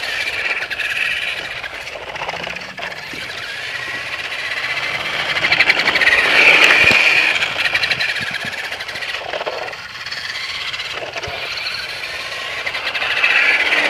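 Battery-powered remote control truck's electric motor whining as it drives, swelling to its loudest about halfway through and then easing off.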